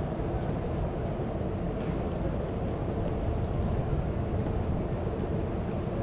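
Steady outdoor urban background noise, mostly a low rumble, with a few faint ticks.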